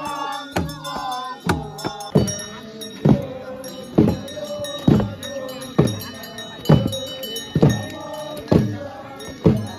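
A festival drum beaten in a steady slow beat, a little under one stroke a second, each stroke falling in pitch as it rings. Voices chant along in the first couple of seconds, and a thin high ringing carries on behind the drum.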